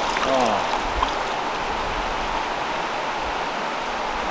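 Steady rush of stream water running over rocks.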